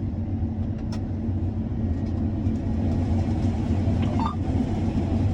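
Heavy farm vehicle engine running with a steady low drone, with a brief higher-pitched sound about four seconds in.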